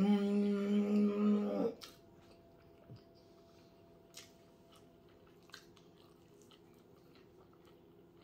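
A woman hums a long "mmm" of enjoyment over her food. Her voice slides up and then holds one pitch for nearly two seconds before stopping. Quiet chewing follows, with a few faint mouth clicks about a second or so apart.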